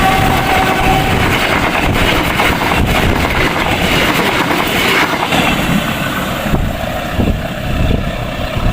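A train passing close at speed: loud rumble and rushing noise of the wheels on the rails, with some clacks. The end of its horn blast dies away in the first second.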